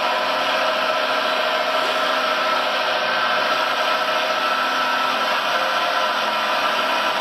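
Hydraulic pump of a radio-controlled Liebherr 956 model excavator whining steadily while the boom and grapple move.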